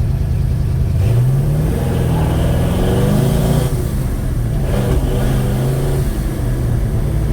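1956 Chevy Bel Air's 307 small-block V8 accelerating under way. The revs climb from about a second in, fall back near the middle, climb again and then ease off. The engine has a slight stumble and isn't pulling as strongly as it should.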